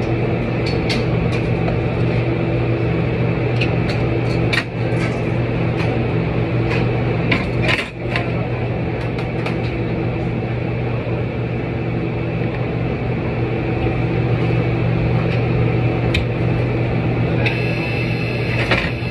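Steady, loud hum of running kitchen machinery, with scattered clinks and knocks of kitchenware, most of them in the first half.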